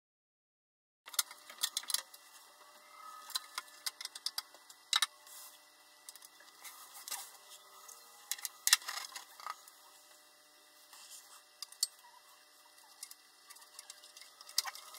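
Hands working inside a small desktop PC case: an irregular scatter of small clicks and taps from plastic and metal parts and cables being handled and fitted, with a few sharper, louder clicks. It starts about a second in, after dead silence.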